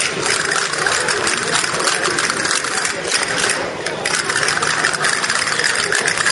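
A dense, continuous clatter of rapid clicks and claps from a crowd of Spanish dancers, with no break in it.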